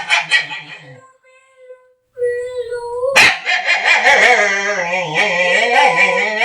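A dog making long, wavering whine-like vocal noises. A quieter held tone comes about a second in, and a sharp click about three seconds in is followed by a louder, drawn-out wavering call.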